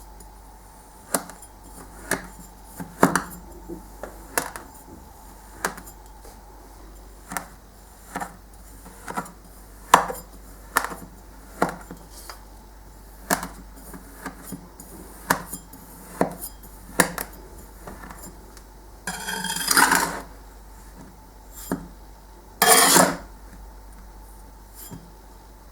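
Knife slicing through kinetic sand, each cut ending in a sharp tap of the blade on the surface below, about one a second. Twice, later on, a longer crunching sound lasts about a second.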